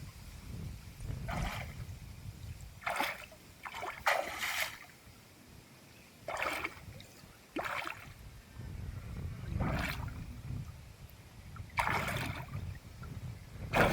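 Water splashing in short, irregular bursts, about eight times, over a low rumble.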